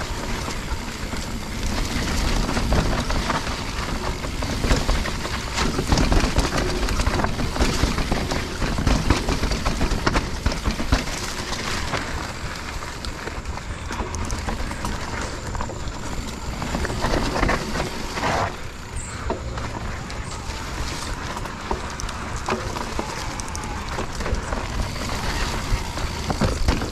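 Wind rushing over the microphone and tyres on a rough trail during a mountain bike ride, with many short rattles and knocks from the bike over bumps.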